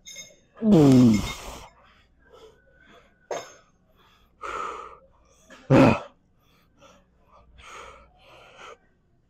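A man's loud, strained grunt with falling pitch about a second in, followed by hard breathing and gasps, with a second short, loud burst about six seconds in: effort sounds at the end of a heavy set of dumbbell chest flies.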